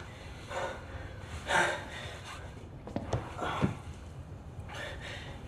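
A young man breathing hard in sharp, gasping breaths, several in a row with short pauses between, as he catches his breath after a physical struggle.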